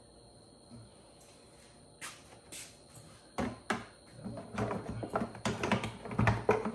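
Plastic engine cover being set onto the engine and pressed down into place by hand. After a quiet start come a few separate knocks, then a run of plastic clattering and clicks that is loudest near the end.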